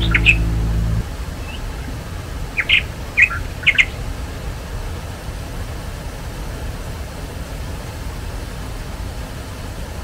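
Background music cutting off about a second in, leaving the steady rush of water pouring over a small river weir. A bird chirps a few short notes about three seconds in.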